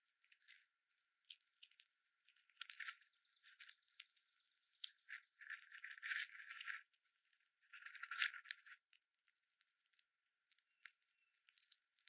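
A small rodent gnawing and crunching food close to the microphone: rapid crackling clicks in two bursts, the first about four seconds long and the second about a second long, with a few scattered ticks around them.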